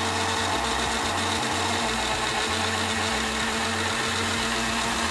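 Black+Decker countertop blender running steadily, its motor holding one even pitch as it blends a thick, creamy mixture in the jar.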